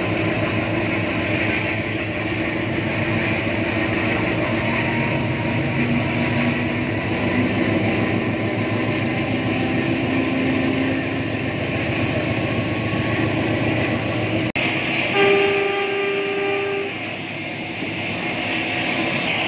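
CC201 diesel-electric locomotive's GE 7FDL-8 V8 diesel running under power, heard from the coach coupled right behind it, with the wheels clattering over the rails. About fifteen seconds in, a train horn sounds one steady note for under two seconds.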